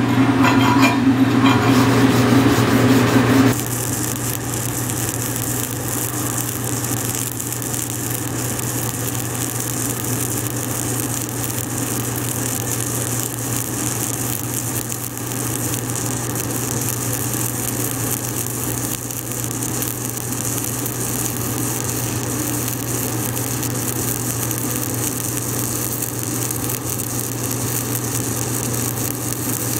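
Stick-welding arc laying hardfacing beads on a steel wear plate with tubular hardfacing rods at about 120 amps: an even crackling sizzle over a steady low hum. The first three and a half seconds are louder, with a hum and fine rapid ticking, before the steady arc sizzle takes over.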